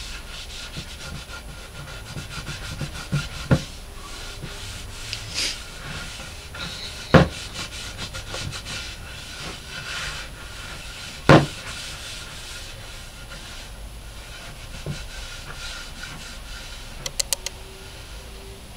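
A cloth rag rubbing back and forth over a wooden cutting board, working in butcher block oil. A few sharp knocks stand out, the loudest two about halfway through, with a quick run of clicks near the end.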